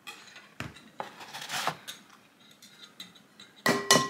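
Scattered light taps and clinks of a wire whisk and eggs against a ceramic mixing bowl, then a louder clank near the end that rings on briefly.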